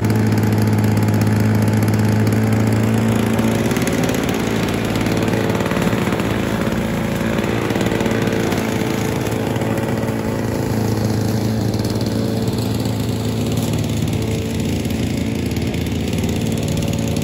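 Victa 160cc two-stroke lawnmower engine running while being pushed through long grass. The steady engine note turns rougher and uneven for stretches as the blade takes the load of cutting, then steadies again.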